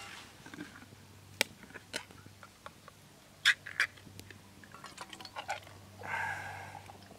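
Tin can of lentil stew being emptied into a small metal pot: sharp clicks and taps of metal on metal, then a squeaky scrape of about a second near the end.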